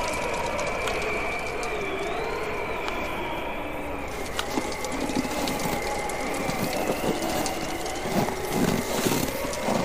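Bonfire crackling with scattered sharp pops, denser near the end, under wind whistling in slowly wavering tones.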